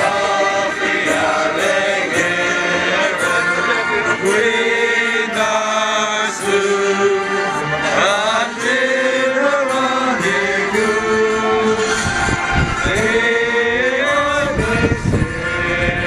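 A group of men singing a national anthem together in slow, held notes.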